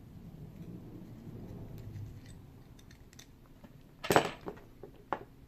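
Small metallic clicks and clinks from handling the parts of a brass safe deposit box lock during disassembly, with one loud sharp click and a short clatter about four seconds in and a smaller click about a second later.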